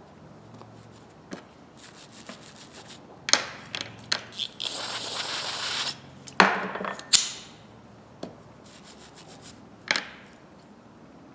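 Grooved slip-joint pliers being handled and cleaned by hand: scattered metal clicks and clacks, short rubbing and scrubbing sounds, and a steady hiss lasting about a second midway.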